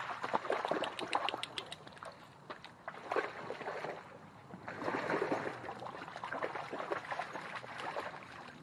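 Dogs wading and paddling through shallow river water, splashing and sloshing in uneven bursts, loudest near the start and again from about five to eight seconds in.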